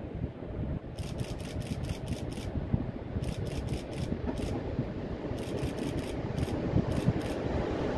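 Approaching PKP ET22 six-axle electric locomotive with a mixed freight train, a low rumble slowly growing louder. Over it come several bursts of rapid sharp clicks, several a second.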